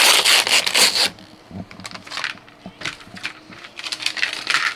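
A foil LEGO Ninjago minifigure pack crinkling loudly for about a second as it is handled. Small plastic LEGO pieces then click and rattle in a plastic tray, and another short burst of foil crinkling comes near the end.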